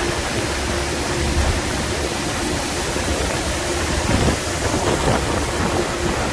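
A vehicle on the move: a steady rushing noise over a low engine hum.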